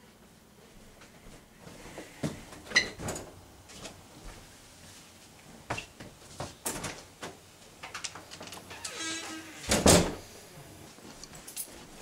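An interior wooden door being handled: a string of knocks and clicks, a short rattle, then a loud bang about ten seconds in.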